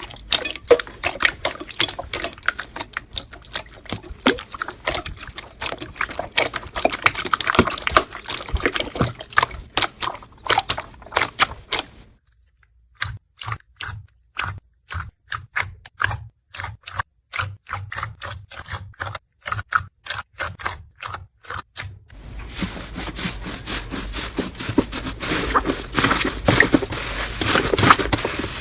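Slime being squished and poked, making a dense run of small crackling pops and clicks. About twelve seconds in it changes to sparser, separate clicks with silence between them, and dense crackling returns about ten seconds later.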